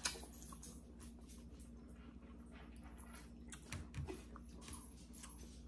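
Faint eating sounds: noodles slurped and chewed, with scattered small wet clicks. A sharper click comes right at the start, and a couple of soft knocks come about four seconds in.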